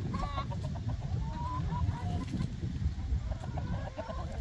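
Domestic hens clucking. There are quick runs of short clucks about half a second in and again just past three seconds, with drawn-out calls between, over a steady low rumble.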